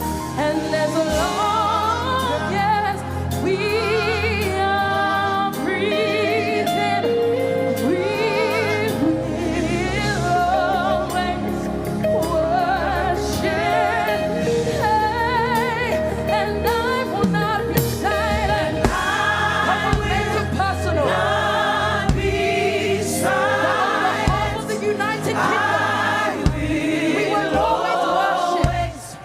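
Gospel worship song: a lead voice and choir singing with vibrato over sustained bass and keyboard accompaniment.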